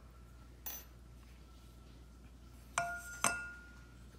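Stainless steel dog bowl being set into the ring of an elevated wood-and-metal bowl stand: a brief scrape under a second in, then two metallic clinks about half a second apart around three seconds in, the bowl ringing after each.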